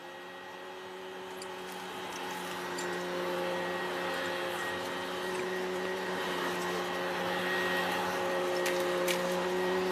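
Upright vacuum cleaner running with a steady motor hum as it is pushed over carpet, growing slowly louder.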